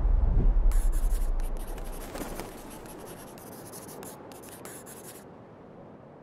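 The last low notes of a song dying away, then a pen-on-paper writing sound effect: a run of quick scratchy strokes lasting about four seconds, stopping shortly before the end.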